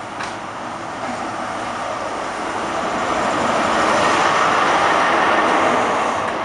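Class 43 HST power car's diesel engine working as the train pulls away, growing louder to a peak as the power car passes close by, then easing as the coaches follow; a brief click just after the start.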